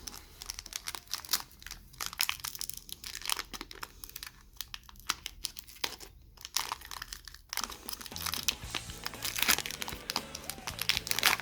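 Foil wrapper of a Pokémon trading-card booster pack crinkling and tearing open in a dense run of crackles, over background music that gets louder about eight seconds in.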